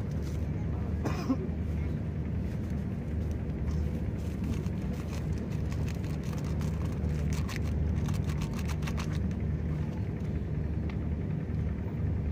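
An engine running steadily at constant speed, a low drone, with a run of short clicks about two-thirds of the way through.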